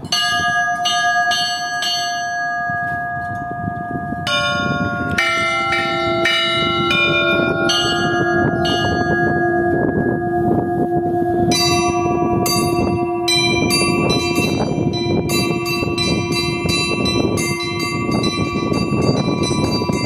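Russian Orthodox church bells rung by hand in the belfry for Easter: small high bells struck in quick repeating patterns. A deeper bell joins about five seconds in and hums steadily underneath.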